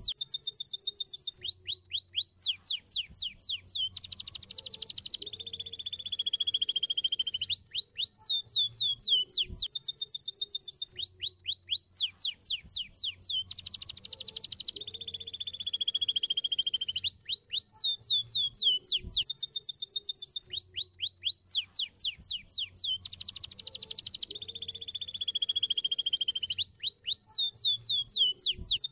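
Domestic canary singing: rapid trills of fast down-slurred notes alternating with a long, slowly falling two-tone whistle, the same sequence of phrases repeating about every ten seconds.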